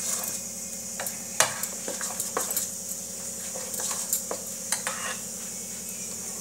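Thick wheat-flour and jaggery batter being stirred by hand in a steel bowl: soft, irregular squelches and clicks against the bowl. A steady low hum and hiss runs underneath.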